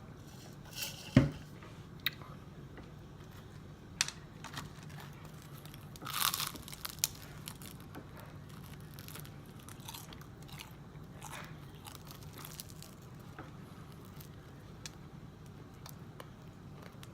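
Person biting and chewing crispy oven-fried chicken: scattered crisp crunches and crackles, with a longer crunch about six seconds in. A sharp knock about a second in, and a low steady hum underneath.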